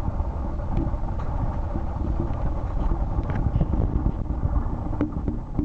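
Wind buffeting the microphone: a loud, unsteady low rumble that drowns out everything else, with a few faint ticks over it.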